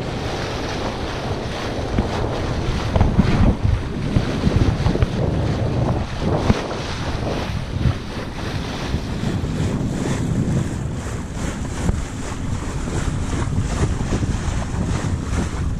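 Wind buffeting the microphone over water rushing and splashing past the bow of a small sailboat under way, in uneven gusts.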